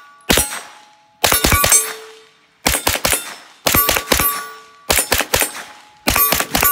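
MP5-style carbine firing: one shot, then five quick strings of about four shots each, a little over a second apart. After each string a steady metallic ring hangs on, typical of bullets striking steel targets.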